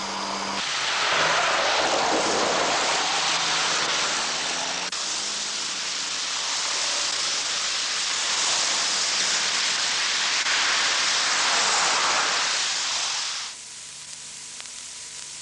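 Road vehicles driving past with a loud rushing noise of tyres and wind that swells and eases, with a faint engine hum beneath. Near the end it drops to a quiet hiss.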